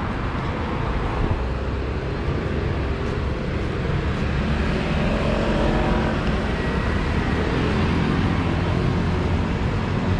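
Street traffic running steadily, with a motor vehicle's engine passing close by around the middle, when it is loudest.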